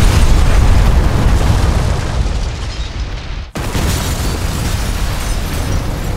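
A movie explosion's deep rumble from a house being blown apart, slowly dying away. About three and a half seconds in it cuts off abruptly, and a second explosion, a building going up in flames, takes over and rumbles on.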